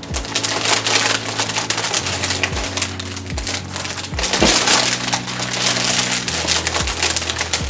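Packaging being handled, crinkling and rustling densely and continuously, loudest about a second in and again around four and a half seconds in.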